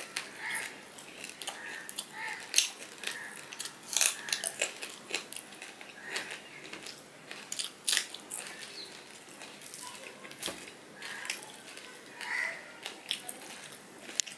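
Close-up eating sounds of fried hilsa fish and rice eaten by hand: irregular crunches, mouth clicks and smacks while chewing.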